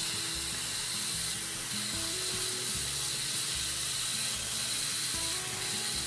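Kitchen faucet running a steady stream of water into a stainless steel pot of muscadine grapes, a constant splashing hiss as the pot fills. Background music with a bass line plays under it.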